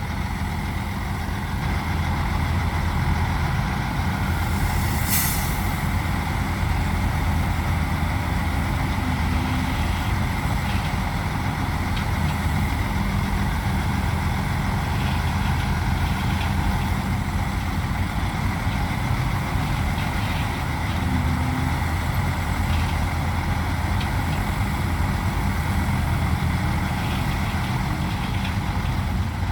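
Heavy diesel engines of earthmoving equipment running steadily at a low, even pitch. A short air hiss comes about five seconds in, and faint light clanks are scattered through the second half.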